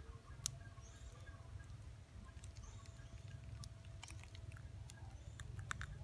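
Small clicks and crinkles of a plastic wasabi tube being squeezed and handled over a plastic bag, with a sharp click about half a second in and a quick run of clicks near the end, over a steady low rumble.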